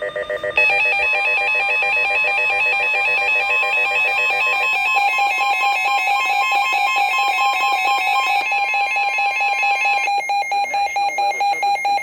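Weather radio alert tone: a loud electronic alarm of rapidly alternating beeping tones. It starts about half a second in and announces an incoming NWS severe thunderstorm warning. One of its tones drops out near the end.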